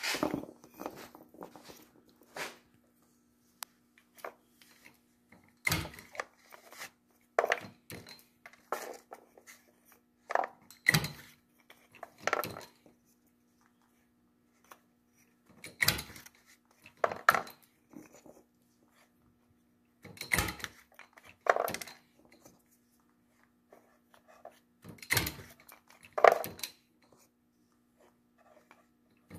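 Hand-fed punching of holes through cardboard pyrotechnic tubes with a dowel-pin punch in a milling machine quill over a steel die block: irregular sharp knocks and clacks as the punch goes through and the tube is handled against the die, some in quick pairs, the loudest near the end. A steady low hum runs underneath.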